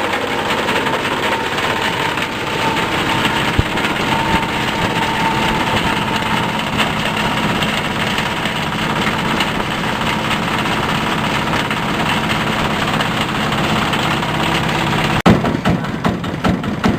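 Fabric and foam shredding machine running steadily with a dense mechanical din. About fifteen seconds in the sound breaks off for an instant and comes back rougher and more uneven.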